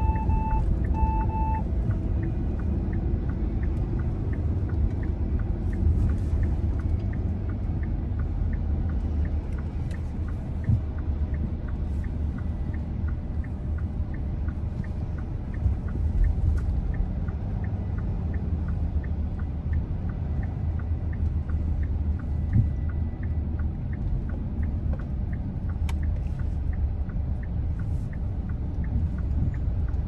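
Steady low rumble of a road vehicle on the move, engine and road noise, with two short beeps right at the start.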